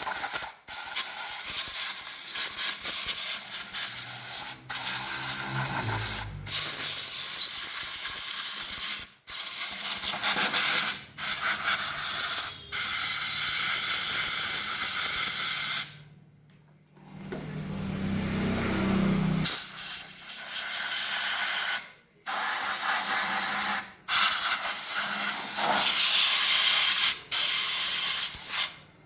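High-pressure spray jet hissing in bursts of one to four seconds, cut off sharply about ten times, as it washes the motorcycle engine's opened clutch and magneto side.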